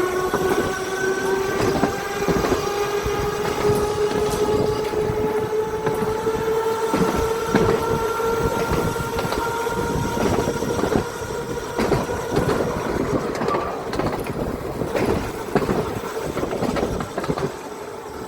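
Electric tram of the Seaton Tramway on the move. Its motor whine rises slowly in pitch as it gathers speed, then holds steady, while the wheels click and clack over the rails.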